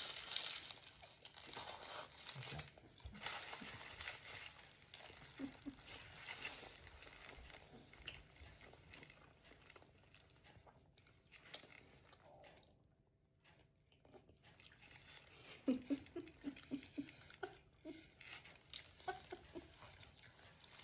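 Close-up chewing and crunching of fried food, with bites and mouth noises, and a brief quiet patch just past the middle. A quick run of short, pitched smacking sounds comes about three quarters of the way in.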